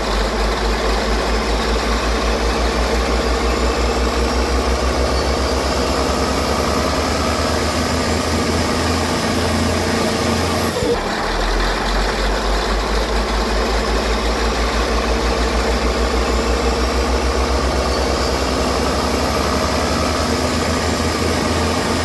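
Heavy turbocharged diesel engine on earthmoving equipment, pulled from idle to full load against the applied retarder. The exhaust pulses quicken and a turbocharger whine rises steadily in pitch as it spools up. The run cuts off about halfway through and a second run from idle follows.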